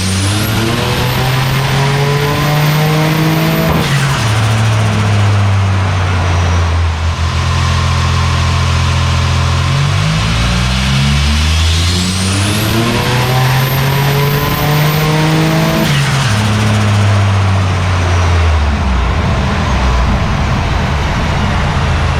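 Turbocharged VY Commodore V6 revving hard on a chassis dyno: its note climbs steadily twice, each pull cut off sharply, with a high whistle rising alongside each climb. The engine is running with a boost leak that was never found, making the turbo come on late.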